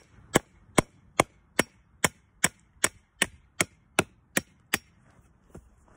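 Claw hammer striking the wooden T-handle of an old hand drill, driving its shaft down through bark mulch and cardboard to punch planting holes for willow cuttings. About a dozen sharp, evenly paced blows, roughly two and a half a second, stopping about a second before the end.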